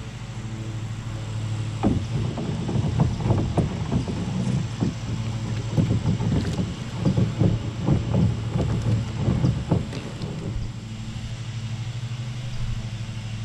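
Spinning reel being cranked as a small bass is brought to the kayak: a few seconds of short, irregular clicks and knocks from reel and rod handling that stop near the end, over a steady low hum.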